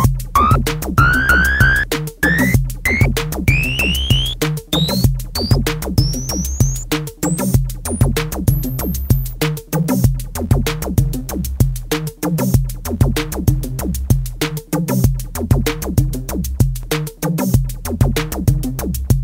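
Electronic background music with a steady beat and a sweep that rises in pitch through the first half.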